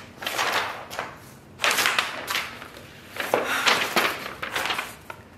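Paper rustling in three bursts as the printed assembly instructions for a flat-pack table are handled and their pages turned.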